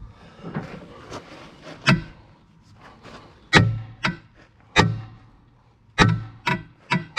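Sledgehammer striking the steel rear axle of an International 1066 tractor: about seven ringing metal blows, roughly one a second and heavier in the second half. The blows are struck while the loose wheel is being tightened with a breaker bar.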